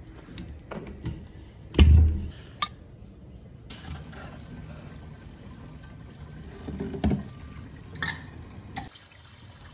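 Handling clanks and knocks from a drum hand pump and a tractor's filler cap, with a loud thump about two seconds in. This is followed by a faint, steady pouring of liquid, broken by a few more knocks.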